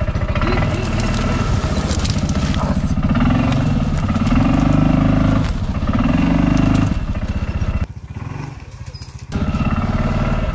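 CFMoto ZForce 500 UTV's single-cylinder engine running under load, the revs swelling and easing twice as the machine is worked down a slope. Near the end the engine sound drops away abruptly for about a second and a half, then comes back.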